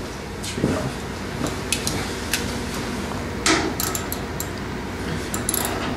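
Irregular metallic clicks, clinks and knocks of hand tools (socket, extension and ratchet) being handled and worked on seat bolts, over a low steady hum.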